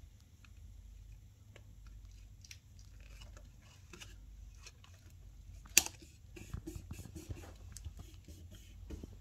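Small clicks and light rustles from hands working on the TV's open panel and cable, with one sharp click a little under six seconds in and a busier run of clicks after it, over a low steady hum.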